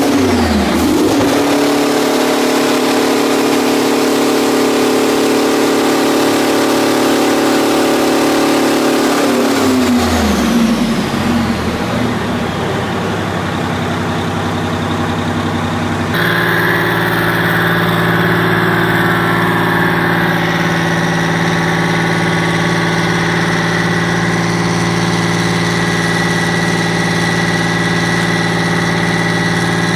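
Detroit Diesel 12V149 two-stroke V12 held at high revs, then dropping back to idle about ten seconds in. After a sudden change, a Detroit Diesel 6-53T two-stroke inline six runs steadily at idle with a high whine over it.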